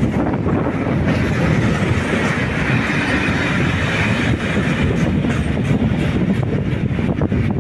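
Freight train of open high-sided wagons rolling past close by: a steady rumble of steel wheels on rail, with clicks from the wheels passing over rail joints that grow more distinct near the end.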